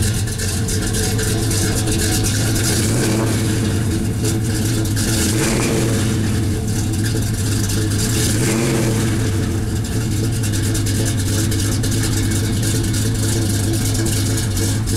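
The 350 V8 of a 1970 GMC pickup, breathing through headers, running at idle, heard at the exhaust tips. The pitch rises slightly twice midway, as with light blips of the throttle.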